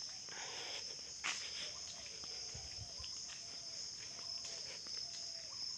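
Steady, high-pitched chorus of insects, with faint scuffing footsteps on a dirt path and a few faint short calls in the middle.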